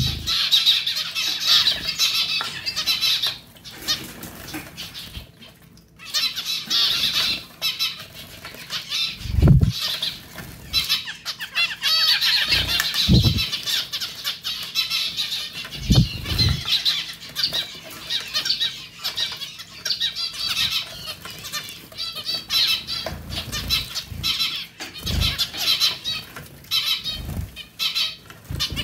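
A group of zebra finches calling almost constantly while bathing, fluttering their wings and splashing in a small pet water fountain. Several dull low thumps come now and then, and the calling drops off briefly a few seconds in.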